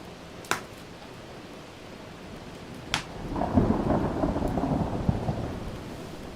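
Steady rain with two sharp pops of a crackling wood fire. About three seconds in, a roll of thunder rumbles up loudly and slowly fades.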